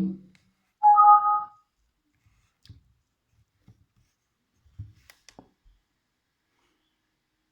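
A short electronic chime from a JBL Bluetooth speaker, two steady notes sounding together for under a second, about a second in; typical of the speaker powering on or pairing. A few faint clicks follow, like buttons being pressed or the speaker being handled.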